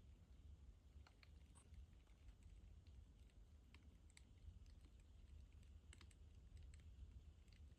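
Near silence: a low steady hum with faint, irregular small clicks and taps, a few each second.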